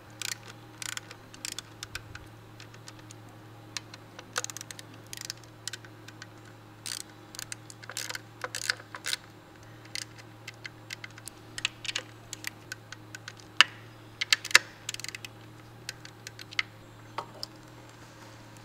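Ratchet with a spark plug socket clicking in quick, irregular runs with short pauses as spark plugs are turned, over a steady low hum.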